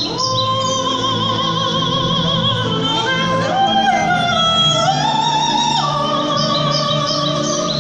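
Music: a high, opera-style voice holds long wavering notes and slides up to higher ones, over a low accompaniment. Short bird-like chirps come back in near the end.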